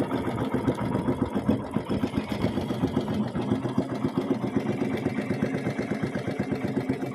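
A small boat's engine running steadily at low revs, with an even rapid chugging.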